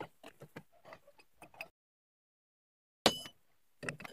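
Light clicks and knocks of metal parts and the rubber drive belt being handled while the variator belt comes off a Honda Dio scooter's front pulley. The sound cuts out completely for about a second, then a sharp ringing metallic clink, the loudest sound, is followed by a few more clicks near the end.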